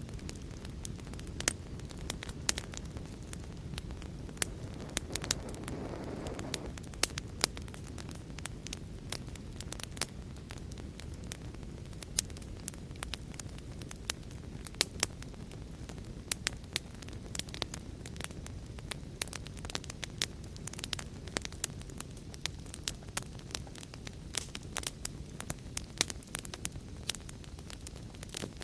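Fireplace fire crackling, with frequent sharp pops and snaps over a steady low rumble of flames and a brief swell of flame noise about five seconds in.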